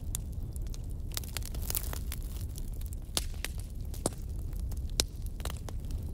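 Flat metal spatula scraping and tapping against an aluminium kadai while stirring scrambled egg bhurji, making irregular sharp clicks and scrapes, the loudest about five seconds in. A steady low rumble runs underneath.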